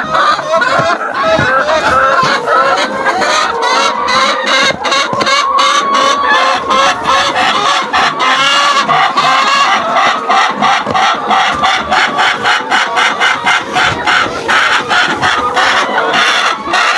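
A flock of laying hens clucking together in a dense, steady chorus, with many short clicks among the calls.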